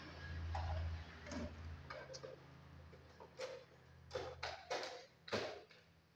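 A faint low hum that fades out, then a handful of sharp clicks and knocks in the second half, as an electrical fitting is handled and pressed against a masonry wall during house wiring.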